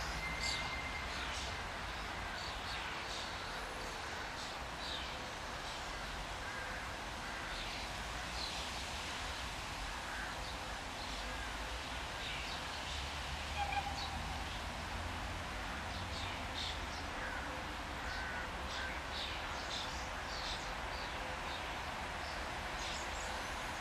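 Birds calling, many short chirps and calls scattered throughout, over a low steady rumble.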